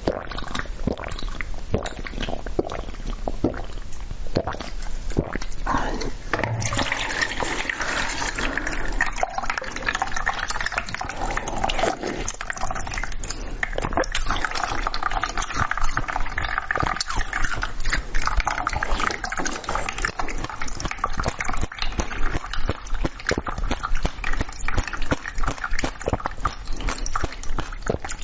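Close-miked eating sounds: wet chewing and slurping, a dense run of small mouth clicks and smacks that gets busier about six seconds in.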